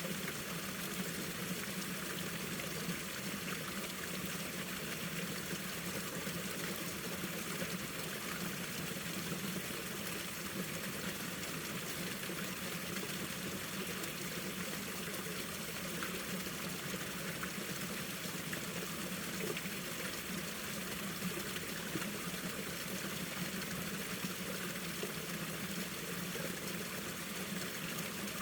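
A mountain stream flowing in winter, its water running and trickling steadily over rocks.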